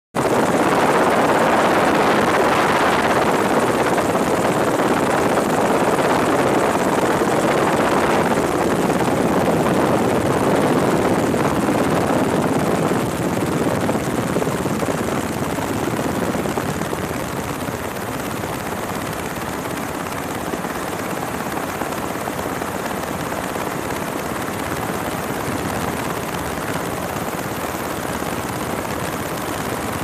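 UH-60 Black Hawk helicopter in flight, heard from aboard: a steady, loud noise of rotors and twin turboshaft engines. It grows somewhat quieter about halfway through and then holds steady.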